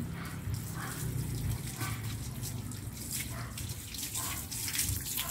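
Water running from a garden hose and splashing over a dog's wet fur and onto wet concrete as the dog is rinsed.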